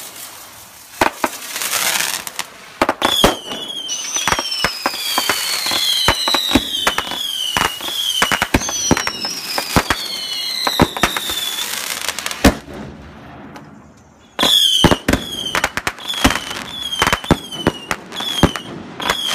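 Consumer fireworks cakes and shells firing: a rapid string of sharp bangs and pops with many short falling whistles, and two longer descending whistles in the middle. There is a brief lull about two-thirds through, then another volley of bangs and whistles.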